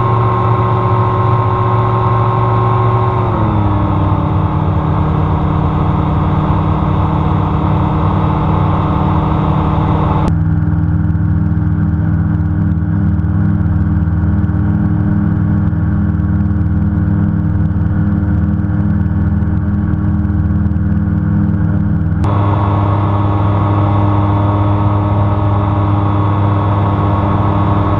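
Xenon gyroplane's engine and pusher propeller droning steadily, heard from inside the enclosed cabin. The pitch steps down about three seconds in, and the tone of the drone changes abruptly around ten seconds in, then switches back a little after twenty-two seconds.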